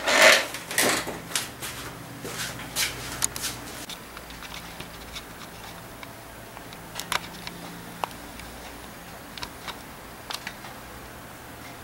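Handling noise: rustling and knocks as the camera is picked up and turned, dying down after about four seconds into scattered light clicks over a faint low hum.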